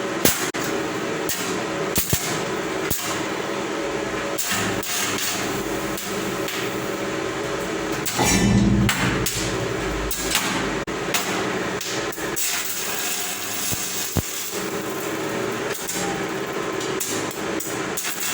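Hammer blows on steel inside a metal water tank, struck at irregular intervals while the baffle is straightened, over a steady noisy background. A louder stretch comes about eight seconds in.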